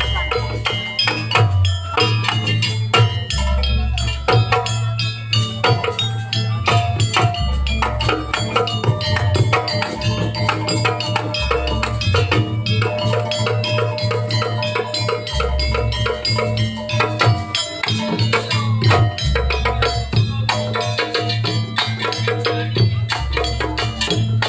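Live traditional percussion ensemble music accompanying a pencak silat dance: rapid drum and wooden-sounding strokes over ringing pitched percussion, with a deep low stroke about every four seconds.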